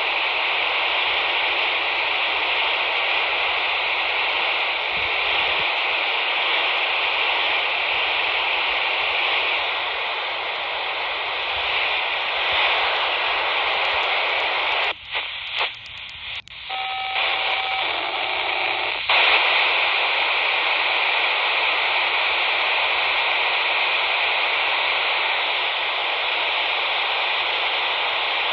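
POCSAG pager data transmission on 464.650 MHz heard through a radio scanner's speaker: a steady, harsh, hissing buzz. About halfway through it breaks up for a few seconds, with brief faint tones, then resumes.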